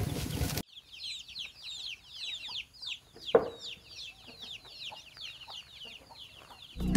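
Poultry chicks peeping in a steady stream of short, high, falling cheeps, with one louder, lower call from an adult bird a little after three seconds in.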